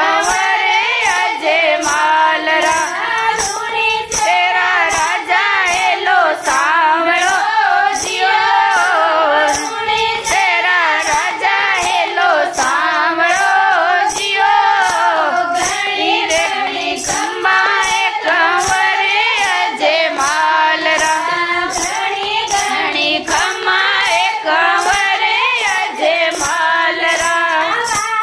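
A group of women singing a Marwari folk bhajan together, with hand-clapping keeping a steady beat of about two claps a second.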